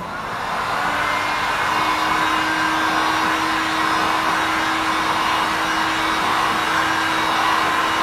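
Electric heat gun with a flat nozzle blowing hot air, switched on at the start and building within a second to a steady rush with a low steady hum underneath, drying freshly brushed primer on a car's painted panel.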